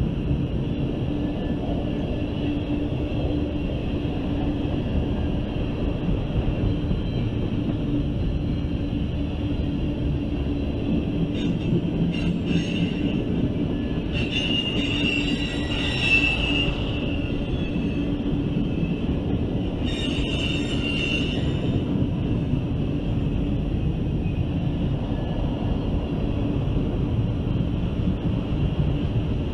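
Freight train of loaded ethanol tank cars rolling past, a steady rumble of steel wheels on rail. Wheel squeal rises over it twice, for about three seconds near the middle and again more briefly about two-thirds through.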